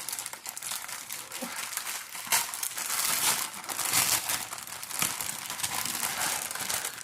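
Sock packaging being opened by hand: irregular crinkling and rustling, busiest in the middle.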